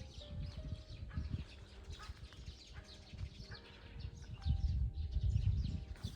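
Many small birds chirping, short high calls overlapping throughout. A low rumble underneath swells up about four and a half seconds in and stays loud for over a second.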